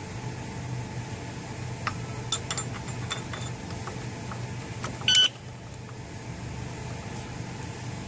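Light metal clinks of an alarm padlock being fitted through a motorcycle's rear sprocket. About five seconds in, the lock gives one short, loud electronic beep, the sign that it has been pressed shut and its alarm is armed.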